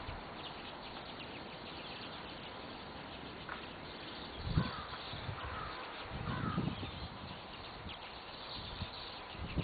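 Small wild birds calling: faint high chips throughout, and three short warbled calls in quick succession about four to six seconds in. Two soft low thumps come around the calls.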